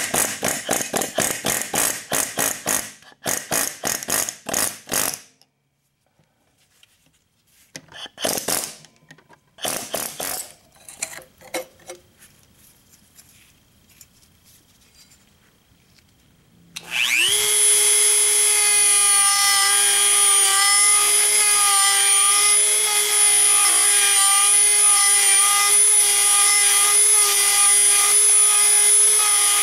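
Pneumatic air hammer driving out the seized front axle pivot pin of a 1948 Ford 8N tractor, fast repeated blows in short bursts for the first five seconds, then a few separate knocks. From a little past halfway a Dremel rotary tool with a sanding bit runs with a steady high whine, polishing the cleared axle bore smooth for the new bushing.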